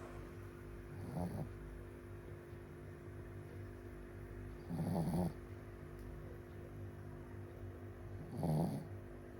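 Shih Tzu dog snoring in deep sleep: three snores, each about half a second long, a few seconds apart.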